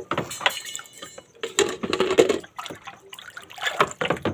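Water splashing and sloshing in a plastic basin as a hand moves through it, in short irregular splashes.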